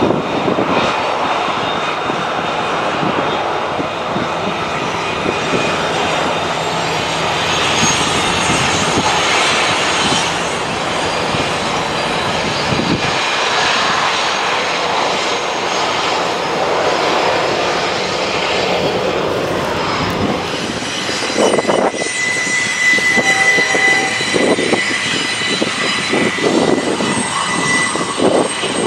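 Two double-stack freight trains rolling downgrade side by side: a steady rumble and clatter of wheels on rail. About two-thirds of the way through, the clatter grows choppier and a thin, high, steady wheel squeal comes in.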